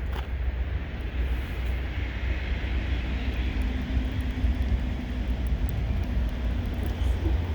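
Wind rumbling on the microphone in a snowstorm, with a faint steady engine drone, a passing vehicle or aircraft, through the middle of the clip.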